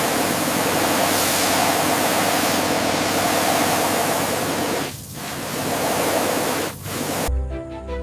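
A loud, steady rushing hiss with no clear pitch, briefly dipping twice, that breaks off about seven seconds in as soft music with sustained notes begins.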